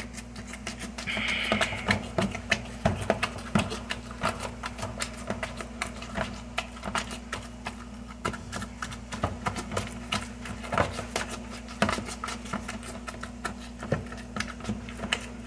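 Wire potato masher tapping and scraping in a plastic bowl of mashed sweet potato filling, a rapid, irregular run of clacks as the filling is mashed and mixed. A steady low hum runs underneath.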